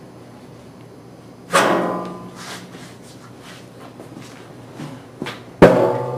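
A sheet-metal body panel being handled, clanging twice with a ringing decay: once about a second and a half in, and louder near the end, with a few small knocks in between.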